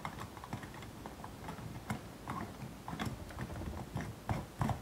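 A light bulb being screwed into a round white lamp-holder socket: a run of small, irregular clicks and scrapes from the bulb's screw base turning in the holder, several a second.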